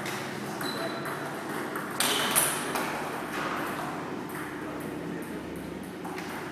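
Table tennis balls clicking off paddles and table tops in rallies at more than one table, with the loudest hits about two seconds in.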